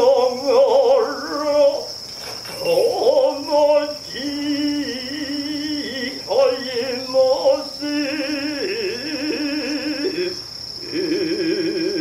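A voice chanting long, wavering phrases with heavy vibrato, each phrase sliding up at its start. Crickets chirr steadily throughout.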